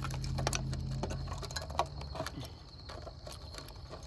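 Irregular small clicks and taps of hand tools and parts being worked on a CRT television's circuit board, over a low steady hum that fades out about halfway through.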